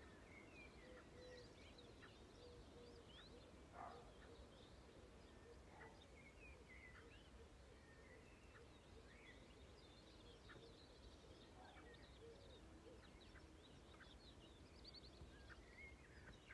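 Faint birdsong: many small birds chirping and trilling in short high notes, over a steady low rumble. A brief louder knock about four seconds in.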